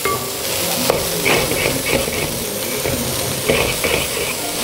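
A spatula stirs and scrapes through masala-coated soya chunks frying in a metal pot, with a few sharp knocks of the spatula against the pot.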